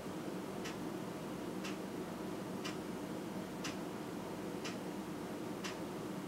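Clock ticking steadily, one tick a second, over a steady low background hum.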